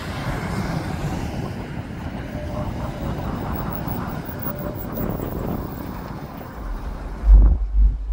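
Road traffic passing close by, a vehicle's engine and tyre noise running steadily. Near the end, wind buffets the microphone with a low rumble.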